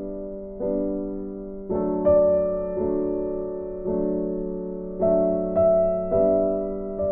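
Background music: slow, gentle piano playing sustained chords struck about once a second, each note fading before the next.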